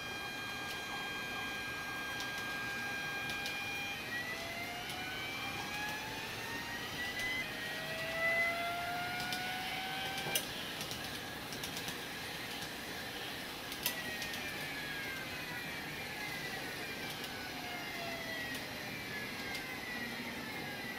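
N-gauge model train's electric motor giving out a simulated VVVF inverter sound, made by a microcontroller PWM controller driving the unmodified motor. Several steady tones at first, then from about four seconds in several pitches rise together as the train picks up speed, and in the later part they fall again; two sharp clicks come in the middle.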